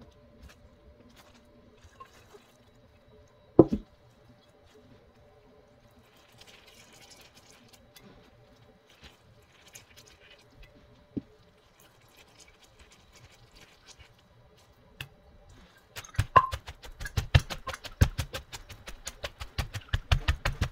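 Wooden pestle and clay mortar as papaya salad is handled and mixed: quiet rustling, with one sharp knock a few seconds in and a lighter one later. About three-quarters of the way through, rapid, steady knocking begins.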